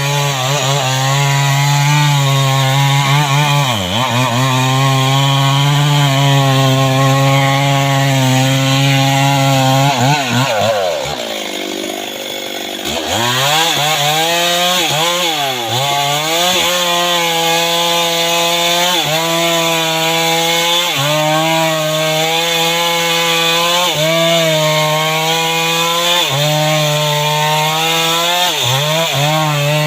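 STIHL MS 381 two-stroke chainsaw running at high revs while cutting mahogany, its pitch sagging again and again as the chain bites under load. About 11 seconds in it drops back toward idle for a couple of seconds, then revs up and cuts on.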